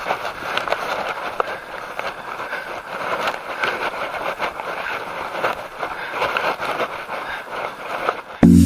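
Bicycle riding on an asphalt road heard from a camera on the rider: steady tyre and road noise with frequent small rattles and clicks from the bike. Electronic music starts abruptly near the end.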